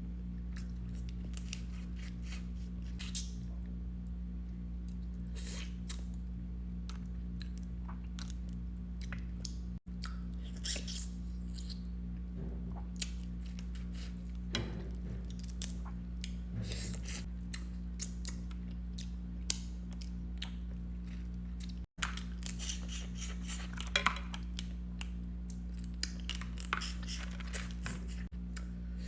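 Boiled Louisiana blue crab being cracked and picked apart by hand, close to the microphone: many short shell cracks, clicks and wet squishes, with chewing in between. A steady low hum lies underneath.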